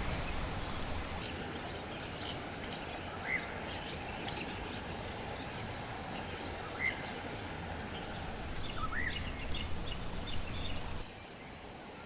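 Outdoor ambience by a stream: a steady high-pitched insect trill at first, then a few short bird chirps over a low background hiss, and a pulsing insect trill starts again near the end.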